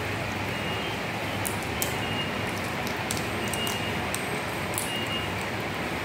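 Steady background hiss with scattered small, sharp clicks: parakeets pecking and biting at fruit and seeds on a wooden table.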